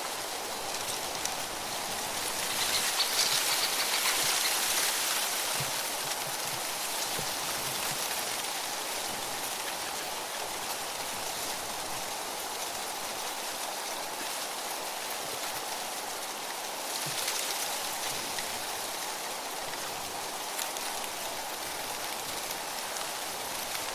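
Wind blowing through tree leaves: a steady rustling hiss that swells in a gust a few seconds in and again about two-thirds of the way through.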